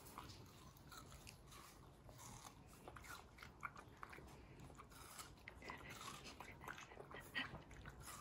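Boston terrier biting and chewing watermelon flesh: faint, irregular small crunches.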